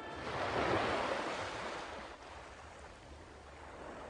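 Sea surf: a wave washes in about half a second in and slowly draws back, and the next starts to build near the end.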